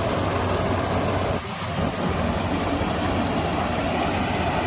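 Goose GS1028E tracked rice combine harvester running steadily, its engine and machinery making a continuous drone, with a brief dip in level about a second and a half in.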